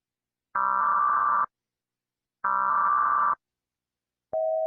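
Emergency Alert System data header: two harsh electronic bursts of about a second each, a second apart, followed near the end by a steady electronic tone.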